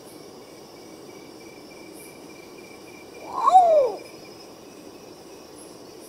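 Long-tailed potoo (urutau-pardo) giving a single call about three seconds in: one mournful note that slides steeply downward. A steady high insect trill runs underneath.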